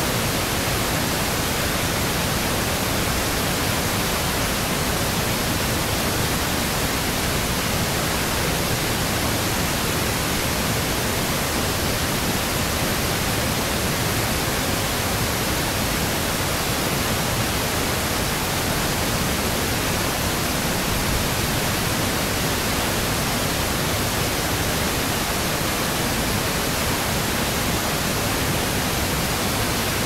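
Waterfall rushing: a steady, even noise that does not change in level.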